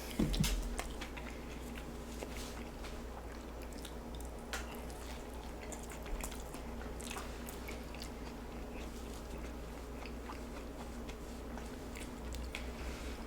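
Close-miked chewing and biting of a tostada with a crunchy fried shell: scattered crunches and mouth sounds, with a louder bite just after the start.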